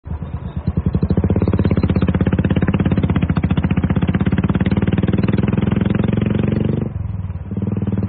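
Motorcycle engine running with a rapid, even pulse, building up over the first second. It drops briefly about seven seconds in, then carries on.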